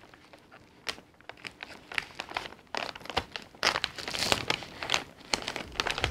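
Thin plastic parts bag crinkling and crackling in irregular bursts as it is handled and cut open at the side, busier in the second half.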